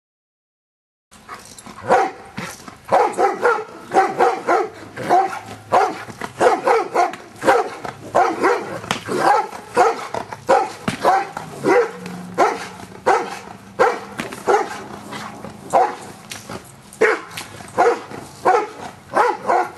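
Giant Schnauzer barking in a long, steady series of short barks, about one to two a second, starting about a second in.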